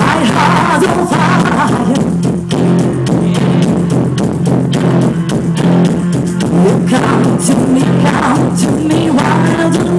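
Live pop song played loud over a concert sound system: a woman singing over a backing track with a heavy, steady bass. The sung melody comes through in the first second or so and again near the end.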